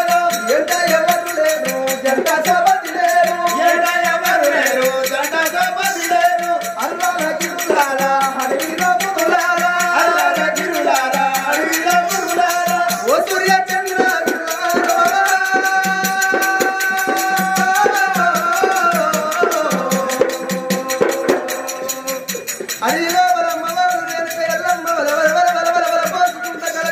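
Telangana oggu katha folk music: a voice sings a melody over fast, steady percussion with a jingling rattle.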